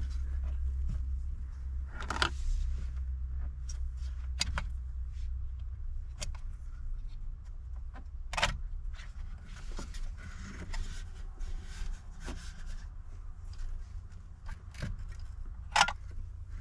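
Plastic dash parts being handled as the radio touchscreen unit is worked free of the dash of a Dodge Challenger: scattered sharp clicks and knocks with some light scraping, the loudest knock near the end, over a steady low hum.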